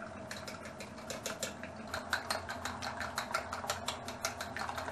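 Wooden chopsticks beating raw eggs in a stainless steel bowl: rapid, even clicking of the chopsticks against the metal, several strokes a second, starting shortly after the beginning.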